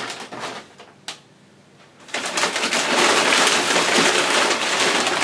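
Brown kraft packing paper being pulled from a shipping box and crumpled, a dense crinkling rustle that starts about two seconds in and keeps going. Before it come a few light handling clicks and knocks.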